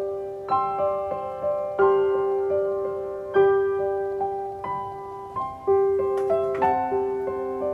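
Background piano music: a simple melody of single struck notes, each ringing and fading before the next.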